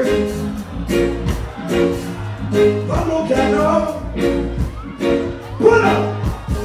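Live reggae stage performance through the PA: a male vocalist singing over a band, with a heavy bass line and a steady drum beat.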